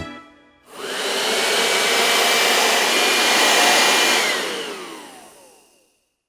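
Vacuum cleaner switched on, running and switched off: its motor whines up to speed, runs steadily with a loud rush of air, then winds down and fades away.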